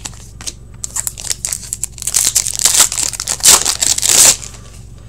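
Hockey card pack wrapper being torn open and crinkled by hand, with a few clicks first, then dense crackling from about a second in that grows loudest before stopping abruptly near the end.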